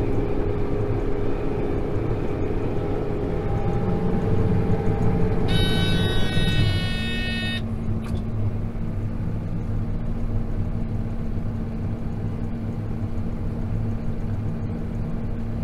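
Tractor engine running with a round baler working in straw. About five seconds in, the baler's bale-full warning beeper sounds for about two seconds, a high electronic tone telling the driver to stop so the bale can be tied and ejected; after it the engine note drops and holds steady.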